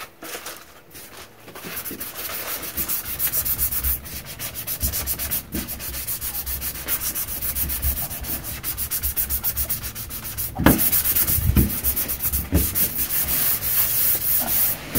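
Fine sanding sponge rubbed back and forth over a painted metal front door in quick, even strokes, a few a second, scuff-sanding the old finish before a new coat. A little past the middle, three dull knocks sound against the door.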